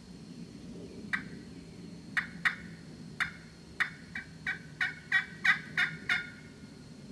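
Turkey call worked in a run of about a dozen sharp yelping notes, spaced out at first and then quickening to about three a second before stopping. It is a first call made to get a gobbler to gobble back.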